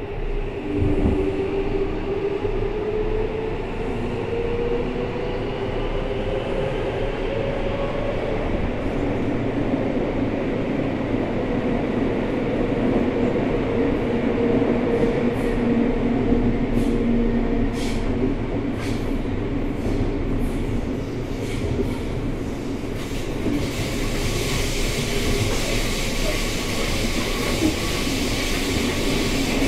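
Running sound inside an aluminium-bodied Seibu 6000 series 50 subseries train with its original Hitachi GTO-VVVF traction system. The motor tones rise in pitch over the first several seconds as the train accelerates, then the train runs on at speed with steady rail noise. A series of short clicks comes in the second half, and a growing hiss near the end.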